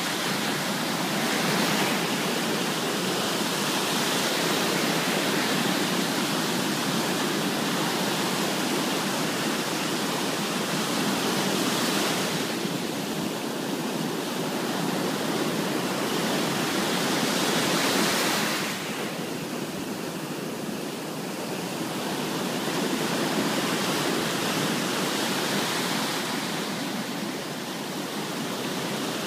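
Ocean surf on a sandy beach: small waves breaking close in and foam washing up the sand, a steady rush that swells as each wave breaks and eases between them.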